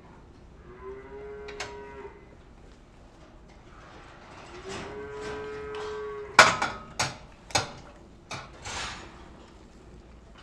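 Holstein dairy cow mooing twice, one steady-pitched call about a second in and a longer one about four and a half seconds in. Right after the second moo comes a run of sharp knocks and clanks, the loudest sounds here.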